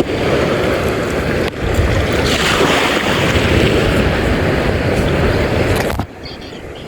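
Wind rushing over the microphone together with sea water at sea, a loud steady rushing noise. It dips briefly about a second and a half in and drops much quieter near the end.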